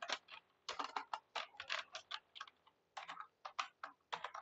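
Computer keyboard being typed on: a quick, irregular run of key clicks with short pauses between bursts.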